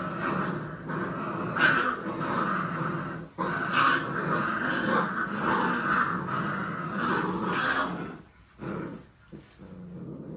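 A litter of bully-breed puppies play-fighting, growling at each other almost without a break. After about eight seconds the noise thins to short, separate growls.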